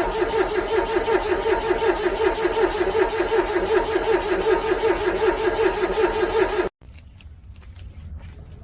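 Car engine cranking on the starter in the cold, the starter turning the engine over with an even pulse several times a second, without catching. The cranking cuts off suddenly about two-thirds of the way through, leaving a few faint clicks.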